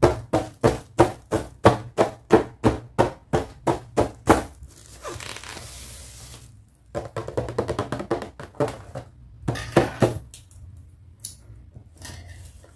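Fingers tapping on a plastic-windowed doll box, about three taps a second for the first four seconds. The plastic packaging then hisses and crinkles as the box is lifted and handled, with a few faint clicks near the end.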